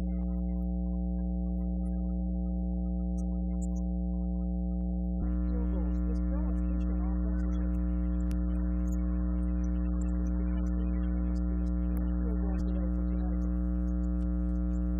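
Steady electrical mains hum on the audio track, a stack of fixed buzzing tones. About five seconds in it turns brighter, with faint game sound underneath.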